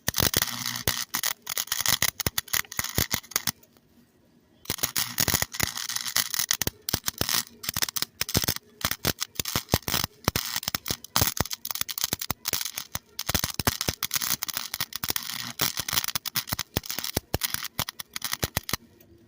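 Wire-feed welder arc crackling and sputtering while laying welds on bicycle metal. There are two long runs, with a short break about four seconds in, and the arc stops shortly before the end.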